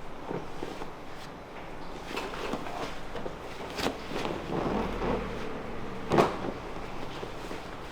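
Hands massaging a back and hips, with a few sharp knocks; the loudest comes about six seconds in.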